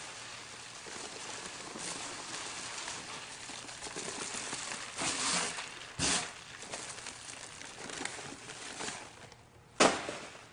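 Dry granular refractory mix pouring from a paper bag with a steady hiss, then being worked by hand, with a couple of dull thumps around the middle and one sharp knock near the end.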